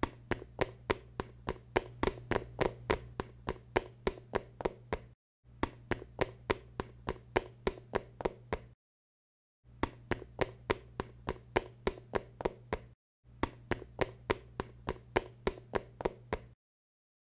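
Quick, regular taps or clicks, about four a second, in four runs of three to five seconds over a steady low hum. Each run starts and stops abruptly, with short breaks between.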